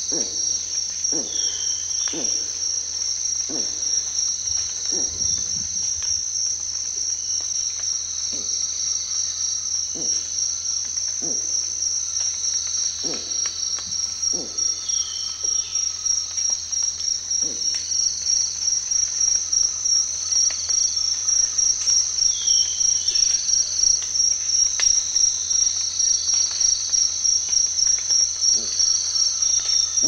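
A cicada chorus buzzes steadily at a high pitch with a fast pulse, getting louder in the second half. Under it, a titi monkey gives a series of short, low, falling notes about once a second, which thin out and stop about halfway through. There are a few brief bird calls in the background.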